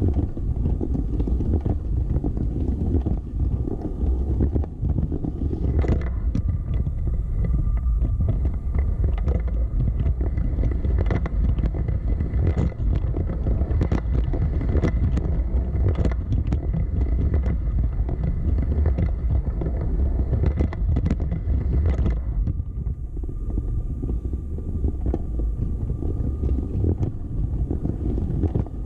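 Lego City train running on its plastic track: a steady low rumble with scattered sharp clicks, and a faint steady whine from about six seconds in until a little past twenty seconds.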